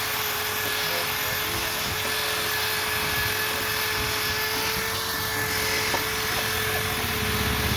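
CNC router spindle running steadily as its bit carves wood: a steady, constant-pitched whine over a hiss of cutting noise, with a small click about six seconds in.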